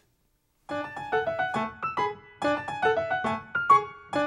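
Piano music: after a brief silence, a quick repeating figure of short notes, about five a second.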